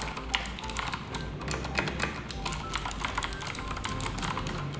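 Rapid typing on an Akko Dragon Ball Z mechanical keyboard fitted with Cherry Blue switches, a dense run of clicky keystrokes.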